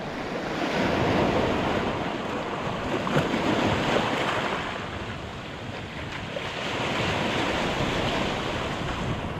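Sea waves breaking and washing over a rocky, pebbly shore, with wind; the surf swells and ebbs, loudest about a second in and again near the end.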